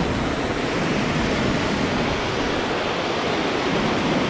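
Steady rush of churning whitewater where a waterfall pours into a pool.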